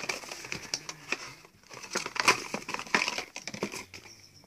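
Cardboard packaging rustling and crackling as a small perfume carton is opened and its glass bottle taken out. The crackling is loudest about halfway and fades near the end.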